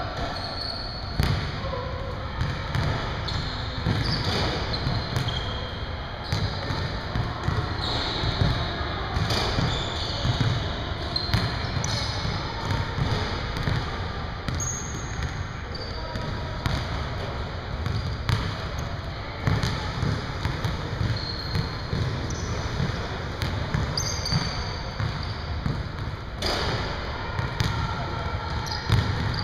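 Basketballs bouncing on a hardwood gym floor at irregular intervals, with short high sneaker squeaks, and indistinct talk echoing in a large gym.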